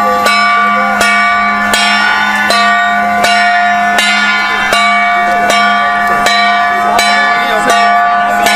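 Music of bells struck in a slow, even melody, about one note every three-quarters of a second, each ringing on, over a steady low drone.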